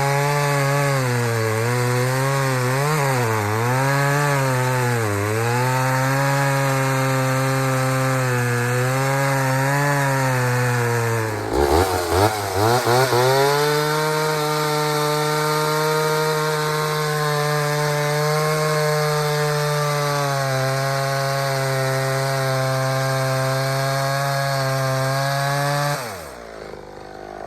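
Two-stroke chainsaw cutting wood, its engine speed wavering under load. About eleven seconds in it dips and stutters, then runs at a steady high speed until it cuts off near the end. The owner takes the saw to be running lean.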